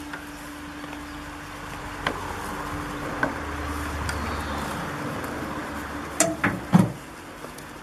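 Goats rustling and chewing hay in a metal wheelbarrow over a steady low hum. Near the end come three sharp knocks about a quarter second apart, the loudest sounds.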